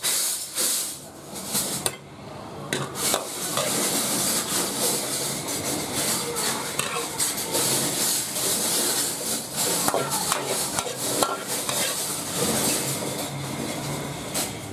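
A large metal ladle scraping and clinking against a wok and a ceramic plate as stir-fried rice noodles are scooped out and pushed around. The clinks and scrapes come irregularly, many times, over a steady hiss.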